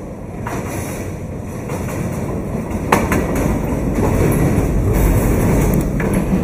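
Diesel-electric locomotive of a passenger express train passing close below, its engine and wheels growing louder as it comes underneath and the coaches follow. A sharp click comes about three seconds in.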